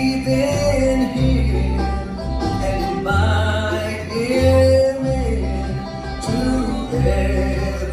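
Bluegrass band playing live: fiddle, five-string banjo, upright bass and acoustic guitar together, with a steady bass line under long held notes.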